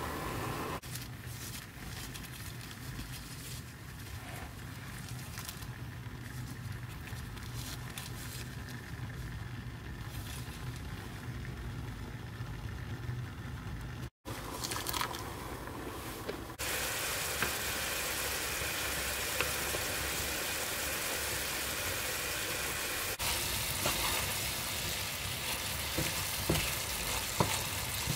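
Creamy minced-meat-and-vegetable sauce sizzling in a frying pan as it is stirred with a wooden spatula, with occasional scrapes and clicks. The sizzle starts suddenly a little past the middle. Before that there is only a quieter steady low hum with a few light clicks.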